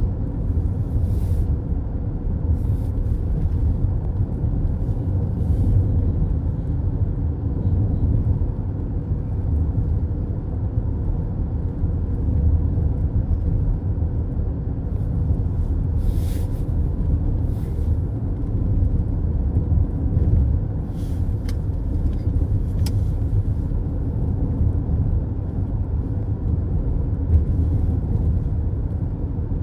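Steady low rumble of road and engine noise heard from inside a moving car's cabin, with a few brief, faint hisses scattered through it.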